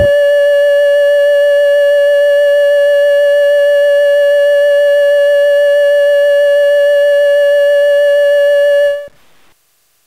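A single steady electronic tone with overtones, held at one pitch and level, then cutting off suddenly about nine seconds in.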